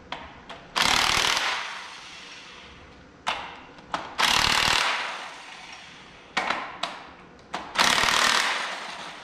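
Cordless impact wrench hammering loose the crankshaft main bearing cap bolts in three bursts a few seconds apart. Each burst starts abruptly and trails off, with a few sharp clicks of the socket going onto the bolts in between.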